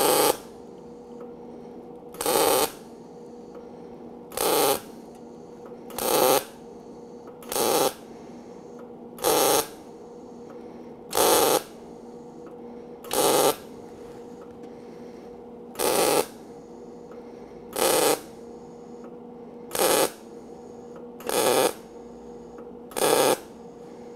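Eastwood MIG 135 welder stitch-welding a butt seam in 20-gauge steel sheet: short bursts of arc crackle, each about half a second, repeated every one and a half to two seconds, thirteen times in all. A steady low hum runs between the bursts.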